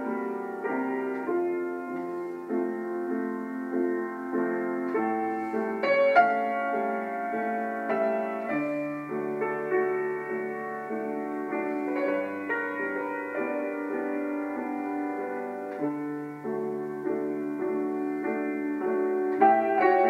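Slow background piano music: held chords and melody notes that change about every second.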